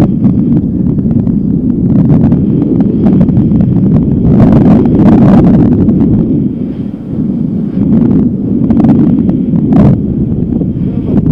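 Strong wind buffeting the microphone in loud, gusty swells, easing briefly about two-thirds of the way through.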